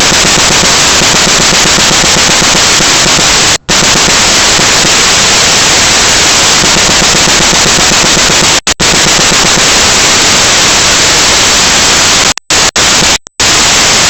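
Strong wind blasting the microphone, overloading it into a steady harsh, crackling noise, broken by a few sudden brief dropouts to silence.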